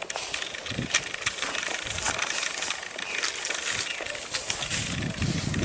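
Tall grass and brush rustling and crackling under footsteps, in many irregular crackles, with a low rumble building near the end.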